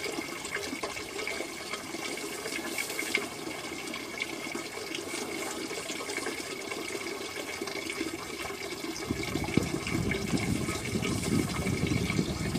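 A stream of water pouring steadily into a hanging plastic 5-gallon bucket as it fills, growing a little louder in the last few seconds.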